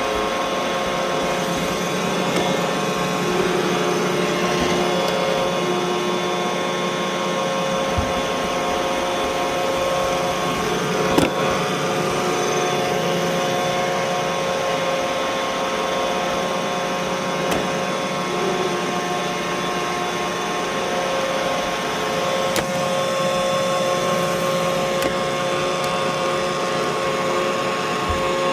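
Roomba robot vacuum cleaner running, a steady motor whine over a hiss, with a few sharp knocks. The loudest knock comes about eleven seconds in.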